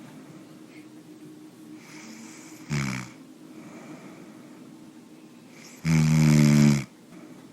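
A person snoring: a short loud snore about three seconds in, then a longer, louder snore lasting about a second near the end, with faint breathing between.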